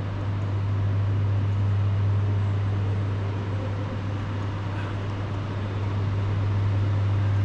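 A steady low hum with a faint even hiss over it, unbroken throughout.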